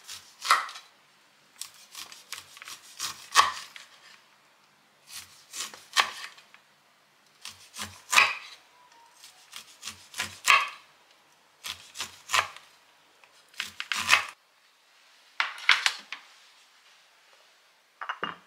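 Kitchen knife slicing kernels off upright sweet corn cobs on a wooden cutting board: short scraping cuts down the cob, each ending in a light tap on the board, in clusters every couple of seconds. A single knock near the end.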